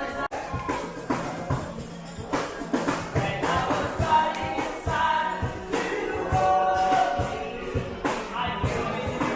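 Background music: a song with a steady beat and sung vocals.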